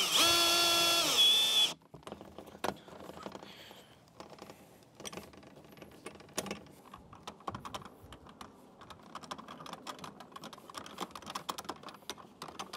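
Cordless drill driving a screw through a metal folding hinge into plywood: a short whine of the motor for about a second and a half that drops in pitch and stops. Then a hand screwdriver turning the screws, a long run of faint irregular clicks and scrapes.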